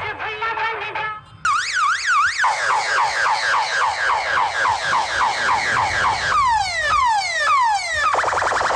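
A song with singing cuts off about a second in. A loud multi-tone electronic siren, like a car alarm, then cycles through its tones: fast up-and-down sweeps, rapid falling chirps about three a second, long falling sweeps, and near the end a fast warble. It is played as a sound effect through a DJ sound system.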